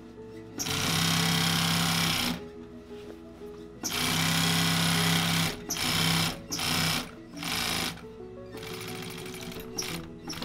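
Industrial single-needle sewing machine stitching a zipper onto a leather jacket panel, running in bursts. Two runs of about a second and a half each are followed by several short bursts as the seam is guided, with background music underneath.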